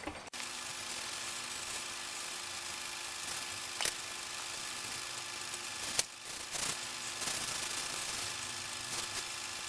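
A machine with a motor runs with a steady whir and hiss, which starts abruptly just after the beginning. Two sharp clicks come about four and six seconds in.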